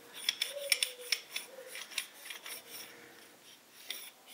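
Light metallic clicks and scrapes of a steel shift fork and rail from a U-445 tractor gearbox being handled over the open housing: a run of quick clicks in the first two seconds, then sparser ones.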